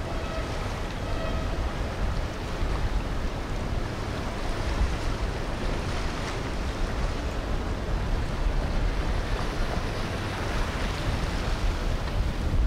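Boat engine running with the rush of water and wake, and wind buffeting the microphone; a faint engine hum at the start fades into the noise, which grows louder near the end.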